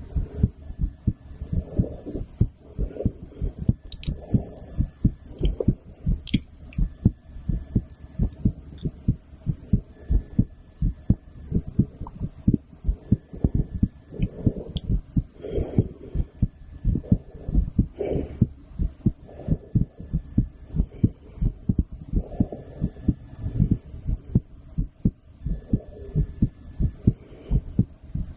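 A woman's heartbeat heard through a stethoscope: a steady, regular run of low thumps.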